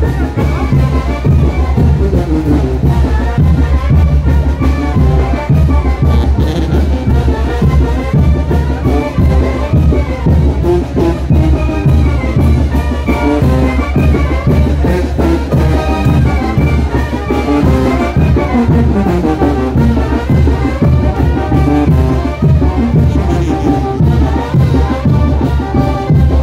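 Brass band with drums playing lively chinelo dance music, trumpets and trombones carrying the tune over a steady beat.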